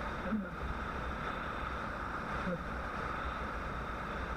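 Steady wind rush and road noise on the camera of a Bajaj Pulsar motorcycle riding at highway speed, with the engine rumbling low underneath.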